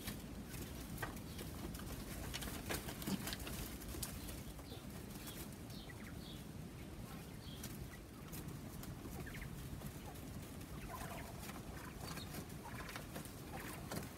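Quail giving soft, scattered short calls, with light clicks and rustles of their feet in wood shavings over a low background rumble.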